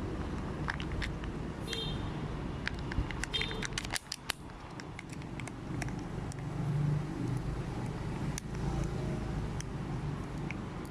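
Sweets packaging being handled and opened: quick sharp clicks and crinkles, densest in the first half, over a steady low rumble.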